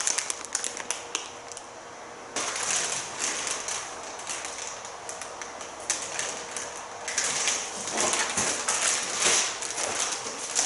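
Plastic packaging crinkling and rustling, with small clicks and knocks, as jack pad adapters are handled and tried for fit. It is quieter for about the first two seconds, then louder in uneven stretches.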